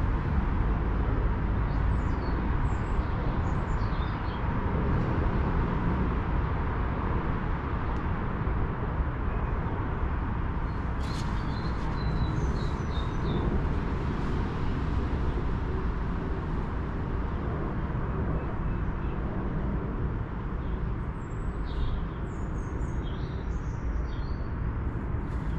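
Steady low outdoor rumble, with small birds chirping in short runs three times: near the start, in the middle and near the end.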